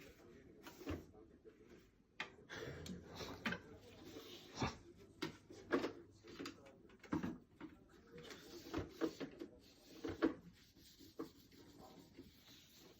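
A cat batting at a Dyson vacuum cleaner that is switched off: a run of irregular light knocks, taps and bumps on the machine's plastic, some close together, with no motor running.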